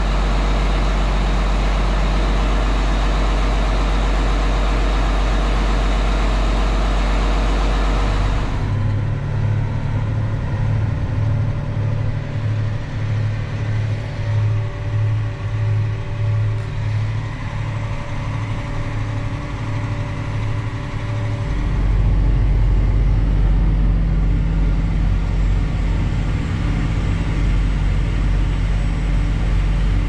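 John Deere 8235R tractor's diesel engine running. It is a steady drone with a hiss at first, changes to a throbbing hum about eight seconds in, and settles into a steadier low drone again about 21 seconds in.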